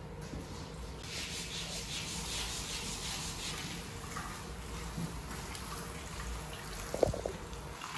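Water poured from a plastic watering can, splashing and trickling onto a wet carpet. About seven seconds in there is a single sharp knock.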